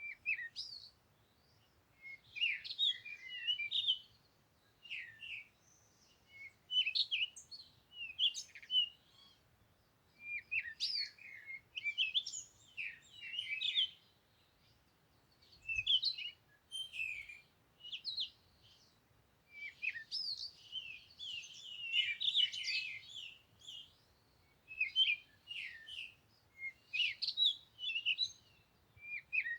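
Songbirds singing: quick, high chirping phrases in bursts of one to two seconds, repeating every few seconds with short pauses between.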